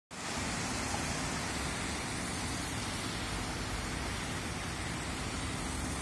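Steady city traffic noise: an even hiss of distant road traffic with a faint low hum, holding level throughout.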